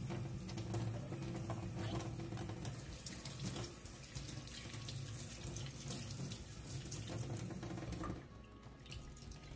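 Kitchen tap running into a sink as garden eggs are washed, with small knocks of handling; the water shuts off about eight seconds in.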